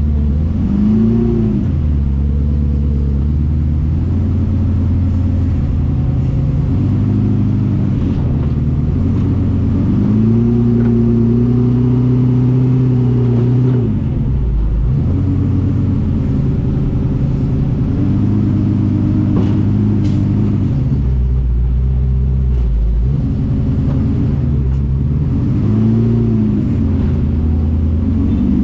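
Engine of an FJ40-based off-road buggy under way, revving up and easing off again and again, with a longer held burst of revs about ten seconds in.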